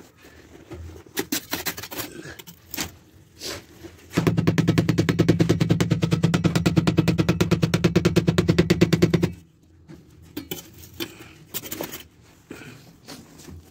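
An electric power hammer breaks brick or concrete for about five seconds, starting about four seconds in, with a rapid, even stream of blows over the motor's hum. It stops abruptly, and scattered knocks and scrapes come before and after it.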